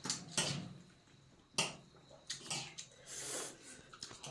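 A person eating chicken soup off the bone: a series of short, separate wet slurping and chewing sounds, faint.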